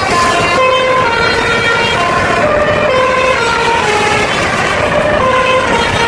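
Basuri telolet horn of an NPM intercity bus playing a fast melody of short, stepped horn notes, over steady road and engine noise.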